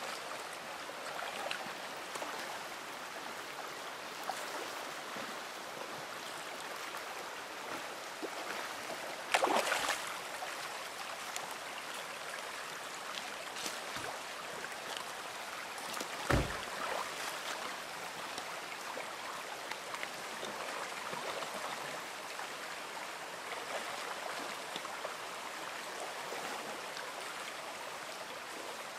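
Shallow creek water running steadily over gravel and rocks. A brief louder splash-like burst comes about nine seconds in, and a single sharp knock about sixteen seconds in.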